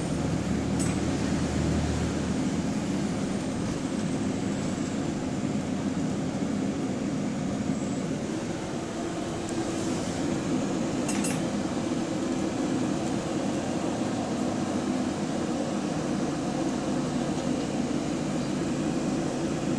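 Steady engine and running noise inside a Volvo double-decker bus, carrying the sound of an exhaust leak. A few brief clinks and rattles come about a second in and again about halfway through.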